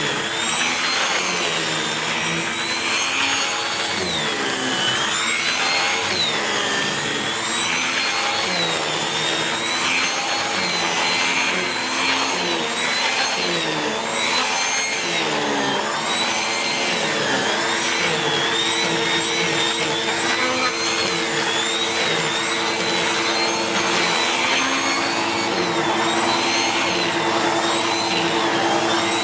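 SEBO X4 upright vacuum cleaner running with its air-driven turbo brush head over an upholstered chair, its whine rising and falling in pitch every second or two. Despite a used paper bag it draws enough suction to drive the turbo brush, and a steadier tone joins in about two-thirds of the way through.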